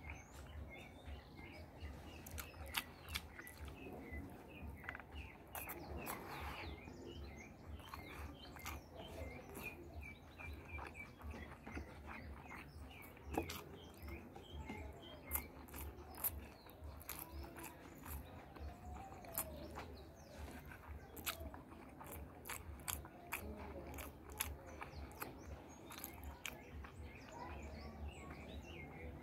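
A person eating rice salad and beef by hand, close up: chewing with sharp, irregular mouth clicks throughout. Birds chirp steadily in the background.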